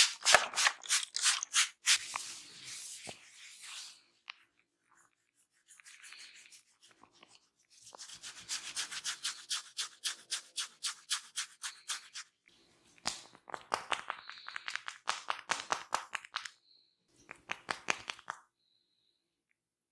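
Fingers scratching and rubbing through hair and scalp during a head massage. Quick strokes come several a second, in bursts of a few seconds with short pauses between them.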